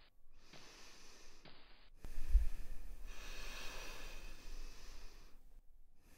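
A person breathing close to the microphone: a few short breaths, then about two seconds in a sudden, louder, longer breath with a low thump at its start that fades out over about three seconds.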